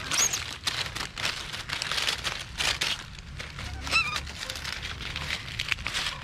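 Dry fallen leaves crackling and rustling as a baby monkey rummages through the leaf litter with its hands, in a quick run of small crunches. A short high chirp sounds about four seconds in.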